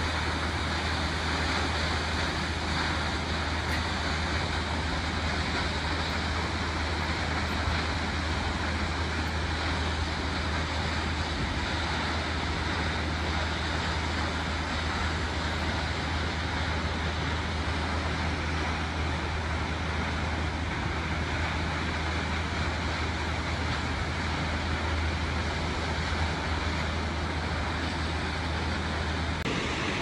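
Steady, even rush of falling water from Kegon Falls, a tall waterfall, with a constant low rumble underneath.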